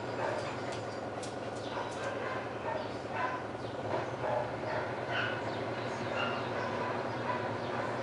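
LG front-loading washing machine running mid-cycle: a steady hum with many short, high squeaks and a few clicks scattered over it.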